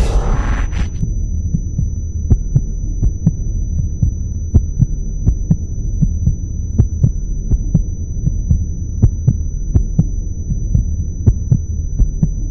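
Logo sound design: a low, steady electronic drone with irregular short thumps, a few each second, like a pulse, over a faint thin high tone. A whoosh dies away in the first second.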